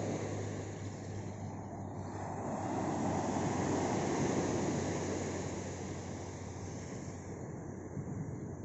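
Small Black Sea waves breaking and washing up a sand beach: a steady rushing surf that swells about midway and then eases.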